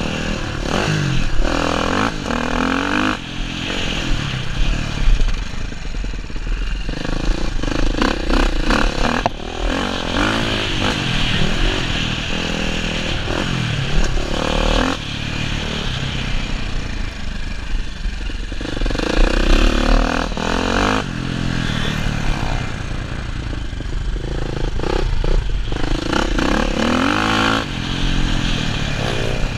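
Dirt bike engine heard from the rider's helmet, revving up and down over and over. The pitch rises through each burst of throttle, then breaks off and drops as the rider shifts or rolls off for the corners.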